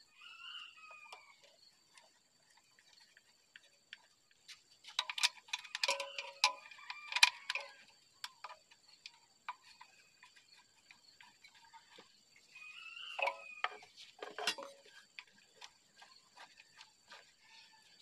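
Screwdriver and bolts clicking and scraping against the metal base of a bench grinder as it is fastened down, in scattered small clicks with two busier stretches. A faint animal call is heard twice, near the start and just after the middle.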